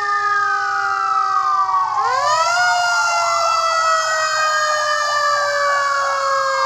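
Fire truck siren wailing, several tones sliding slowly down and up. About two seconds in it rises again and warbles quickly for a few seconds before settling back into a slow wail.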